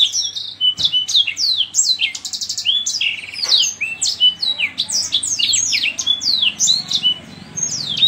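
Yellow-fronted canary (green singing finch) singing a fast, unbroken song of quick falling whistled notes mixed with short level whistles, with brief buzzy trills about two and three seconds in.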